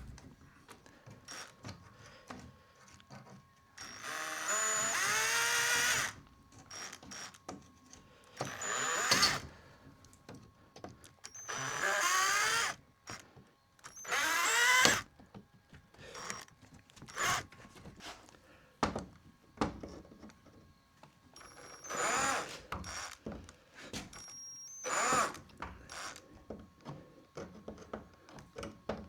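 Right-angled HiKOKI drill with a flat screwdriver bit backing out flat-head screws from old window hardware, in about six short runs that each rise in pitch as the motor spins up, with clicks and knocks of the tool and hardware between them. Some of the screws are stubborn.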